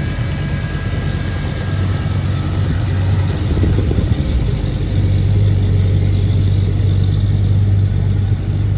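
Engines of classic American cars running at low speed as they roll past one after another: first a mid-1960s Chevrolet convertible, then a late-1950s Pontiac Chieftain. A steady low engine hum grows stronger from about halfway through as the Pontiac draws close.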